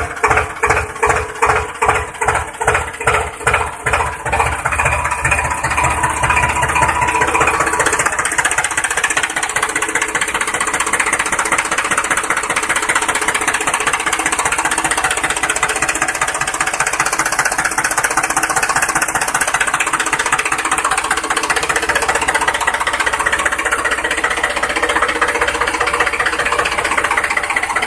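Tractor engine sound. For the first few seconds it pulses in slow, even beats about twice a second, then it settles into a steady, continuous run.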